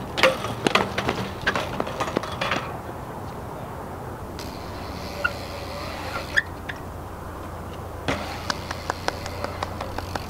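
BMX bike landing and clattering on concrete: a burst of sharp knocks and rattles in the first couple of seconds, a few scattered ticks, then another run of clicks near the end, over steady wind noise on the microphone.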